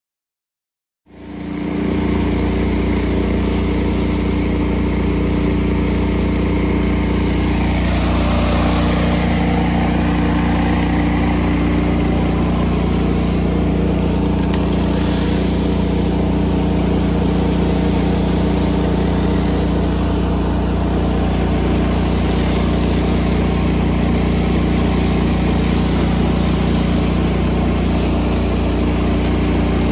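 Gas engine of a pressure washer running steadily, coming in about a second in.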